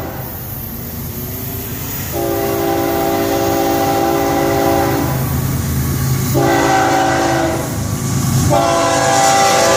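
Nathan K5HL five-chime air horn on an approaching Florida East Coast GE ES44C4 freight locomotive, sounding the grade-crossing signal. After a brief break comes a long blast of about three seconds, then a short one, then the final long blast begins near the end. Under it runs the steady low rumble of the diesel locomotives.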